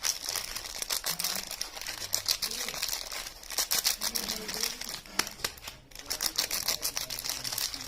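Soap packaging being handled and unwrapped, its wrapper crinkling in a dense run of rapid crackles, with a brief lull about six seconds in.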